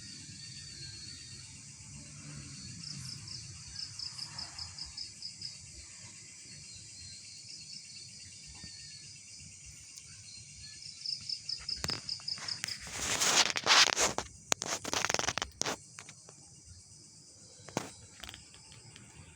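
Night insects, crickets among them, trilling steadily in a high pitch, with two runs of rapid, evenly spaced chirps. About two thirds of the way in, a few seconds of loud noisy bursts cover them, with a couple of sharp clicks around it.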